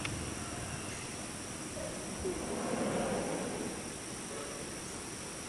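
Steady high-pitched drone of insects in the forest, with a louder, indistinct low murmur about two to three seconds in.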